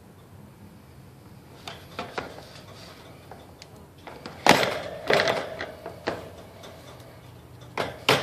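Handling noise from a phone held close to the microphone. A couple of light clicks come first, then several loud knocks and bumps in the second half.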